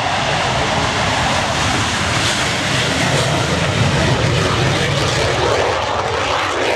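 Hawker Hunter jet taking off and climbing away at full power: a loud, steady jet roar with a deep rumble that builds as it lifts off.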